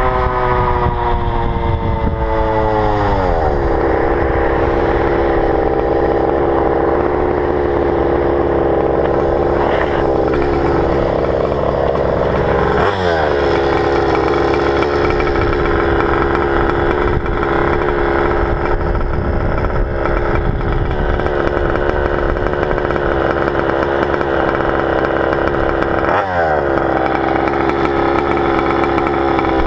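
A Goped's GP460 two-stroke engine running hard. Its pitch falls over the first three seconds and then holds steady and high, dropping briefly and picking back up about 13 seconds and 26 seconds in.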